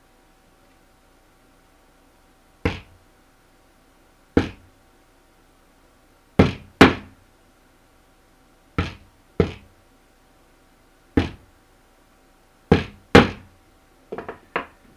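Hammer driving nails through the edge of a beaver pelt into a wooden board: nine sharp single blows at irregular gaps of one to two seconds, some in quick pairs, then a few lighter knocks near the end. These are the last nails of boarding the hide, stretching it round to dry.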